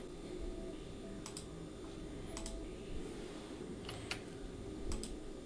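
A handful of sparse computer keyboard and mouse clicks over a faint steady background hum.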